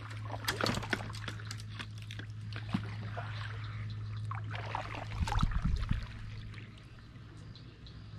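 Kayak paddle strokes through swamp water, with the blades splashing in and water dripping and trickling off them, over a steady low hum. A low rumble about five seconds in is the loudest part.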